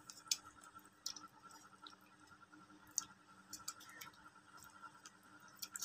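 Faint, scattered clinks and taps of a steel ladle against a metal cooking pot and serving bowl as curry is ladled out, with soft liquid sloshing, over a faint steady hum.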